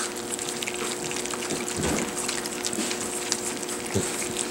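Several puppies eating wet food together from a metal pan: a continuous busy wet lapping and smacking, full of small irregular ticks of tongues and teeth against the dish, with a couple of duller knocks.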